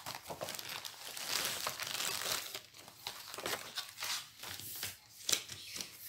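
Packaging crinkling and tearing as it is pulled open by hand to take out a jigsaw puzzle box, with a sharp tap about five seconds in.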